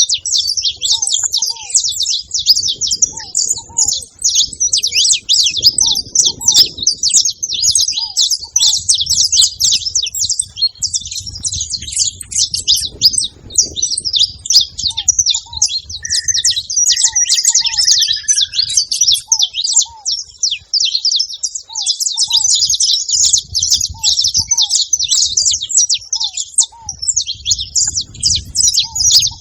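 A flock of saffron finches chattering together at a feeding spot: dense, overlapping high chirps with no break. A lower short note repeats in pairs every second or two, and a longer whistled call comes briefly about halfway through.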